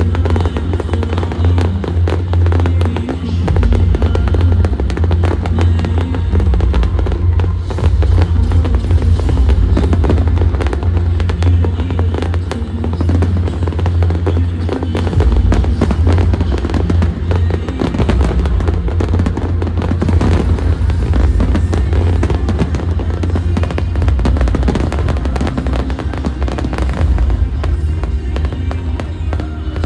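Fireworks bursting in quick, irregular bangs over a loud music soundtrack with a heavy bass.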